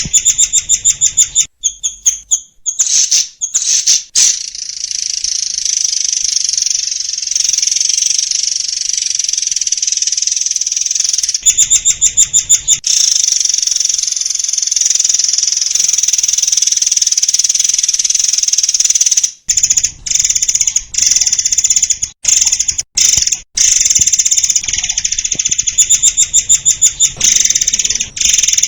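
Murai air songbird singing a long, loud, high-pitched song of rapid trills. It breaks into fast stuttering runs of repeated notes near the start, around twelve seconds in and near the end.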